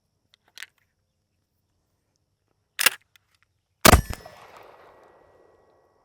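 Two sharp impacts about a second apart. The second is louder and leaves a metallic ring that dies away over about two seconds. A faint click comes before them.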